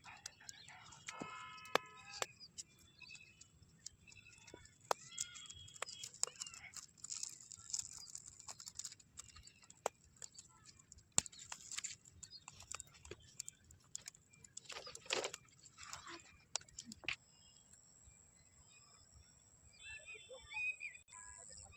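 Chickens clucking now and then, with many short sharp clicks and knocks scattered between the calls.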